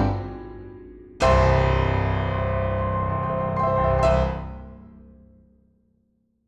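Background piano music. The tail of a rising run of notes fades out, then a full chord is struck about a second in and rings. Another chord comes near four seconds, and both die away to silence.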